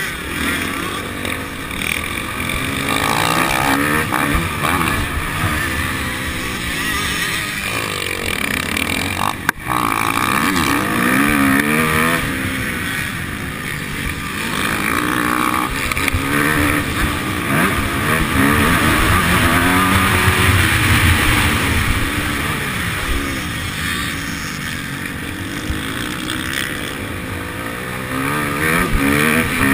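Motocross bike engine at race pace, its revs rising and falling again and again, heard from an on-board camera under steady wind hiss. A single sharp knock about a third of the way in.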